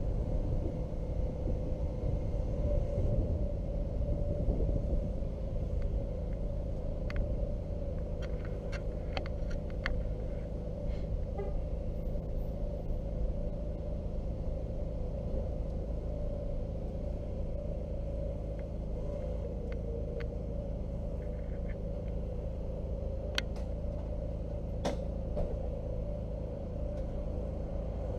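Honda VTX1300C's 1312 cc V-twin running under way, a steady low rumble from the bike on the ride, with a few light clicks here and there.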